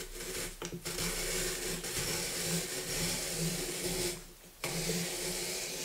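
Hand-cranked Benzer apple peeler, corer and slicer being turned. Its threaded shaft grinds steadily through the frame while the blade pares the peel and slices the apple into a spiral. The cranking stops briefly about four seconds in, then carries on.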